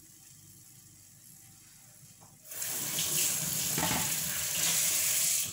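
Kitchen tap running into a stainless steel sink for about three seconds, coming on about two and a half seconds in and shut off abruptly near the end.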